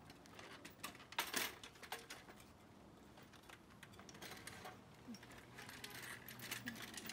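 Aluminium hand truck being tilted and pulled back over paving stones, its metal frame giving faint light clinks and rattles with a few separate knocks.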